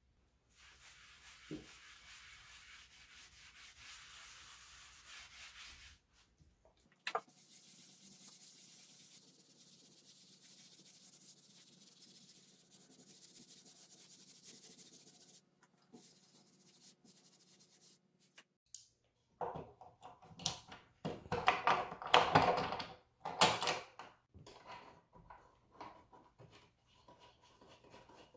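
Cloth rag rubbing over a bare wooden bench top, wiping on tung oil: a soft, steady swishing in two stretches with a short break between them. Near the end, a run of louder knocks and clattering, the loudest sound.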